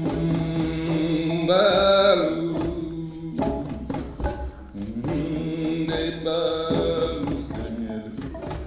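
Choir singing a sustained, chant-like passage of held chords, with light percussion tapping a steady beat.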